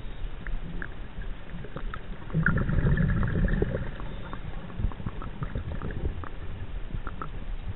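Underwater sound picked up by a diver's chest-mounted camera: a steady low rumble with scattered small clicks, swelling for about a second and a half, a couple of seconds in, into a louder gurgling burst like a scuba diver's exhaled bubbles.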